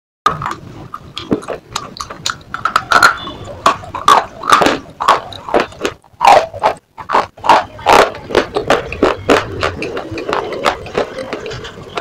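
Pieces of slate being bitten and chewed close to the microphone: a dense run of sharp, irregular crunches, with a short break about six and a half seconds in.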